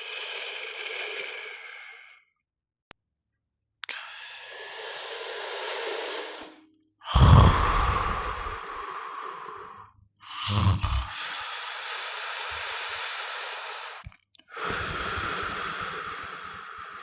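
A person snoring: a run of long, noisy breaths with short silent gaps between them. The breaths starting about seven and ten seconds in begin with a loud, rough low rattle.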